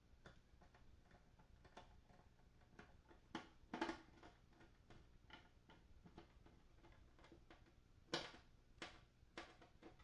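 Small clicks and taps of screws and a screwdriver as screws are put back into the amp's heat sink and chassis, with a few sharper knocks about four seconds in and again near the end.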